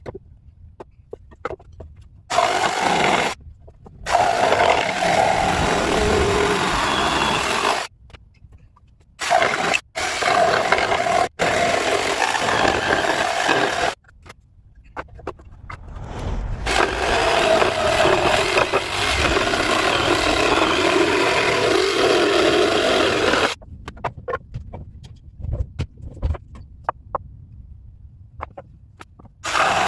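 Woodworking power tool working on wood in several runs of a few seconds, each starting and stopping abruptly, with quiet gaps between; the longest run builds up gradually before holding steady.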